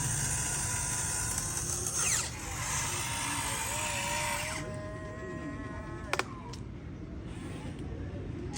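Small electric motor whining steadily, with a hiss that drops away a little past halfway and a sharp click about six seconds in.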